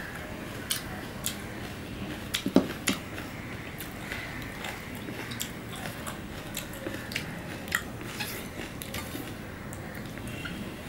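A person chewing shredded pomelo pulp close to the microphone: scattered wet mouth clicks and smacks, the loudest about two and a half seconds in.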